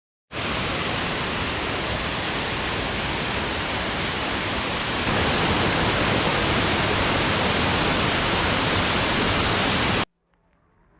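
Waterfall pouring, a dense, steady rush of falling water that gets louder about halfway through and cuts off abruptly near the end.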